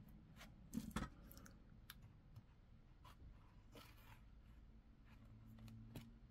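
Faint clicks and light rustling from close hand work with fine jewelry chain, a tape measure and small cutters on a flocked bead board. Two louder clicks come close together about a second in, and a few lighter ones follow.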